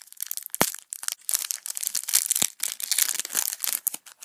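A foil trading-card packet being torn open and crinkled by hand: a dense run of sharp crackles and crinkles, with a few louder clicks.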